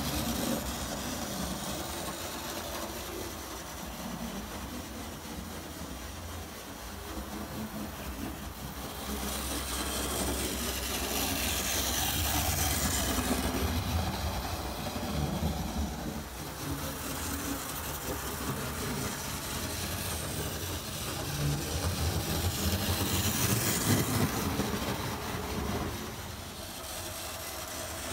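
OO gauge model steam locomotive and coaches running on the track, a steady mechanical running sound with a low hum, growing louder twice as the train comes close.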